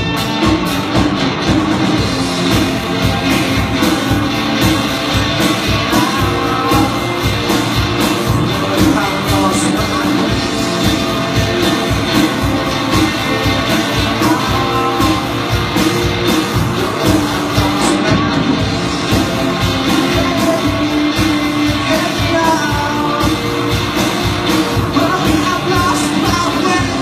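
A rock band playing live: electric guitars over a steady drum-kit beat, with the echo of a large hall.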